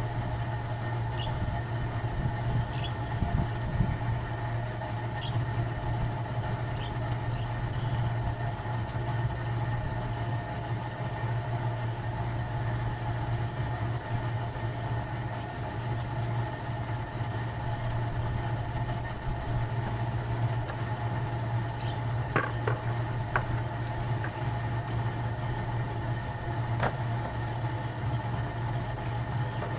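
A steady machine hum, like a motor running without change, with a few faint short high-pitched chirps in the first several seconds and a few light clicks later on.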